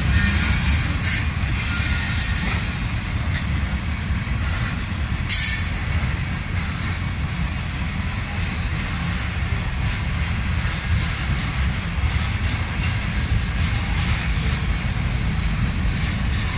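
Freight cars of a slow-moving freight train rolling past: a steady deep rumble of steel wheels on rail, with some high wheel noise near the start and a single sharp clank about five seconds in.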